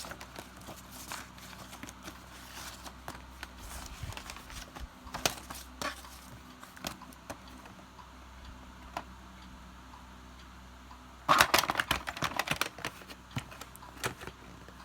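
Paper leaflet being handled: scattered small clicks and rustles, with a burst of louder crinkling about eleven seconds in, over a faint steady hum.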